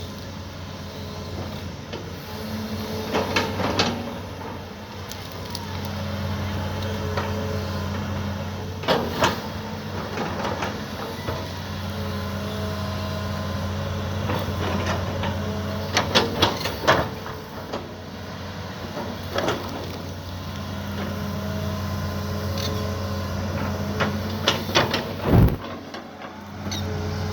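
Mini excavator running while digging: a steady engine hum whose note rises and drops as the hydraulics take load, with knocks and scraping clatter from the bucket working the ground several times.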